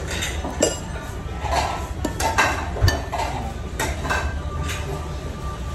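A spoon and dishes clinking and tapping several times during a meal, over a steady low hum.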